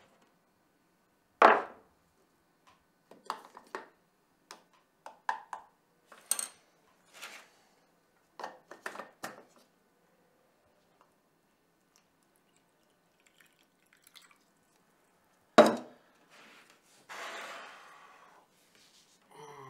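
Breakfast things handled on a plastic tray: scattered clinks and knocks of a plastic jug, a juice carton and a French press, with a louder thump about a second and a half in and another near the end. Water is poured from the plastic jug into the French press.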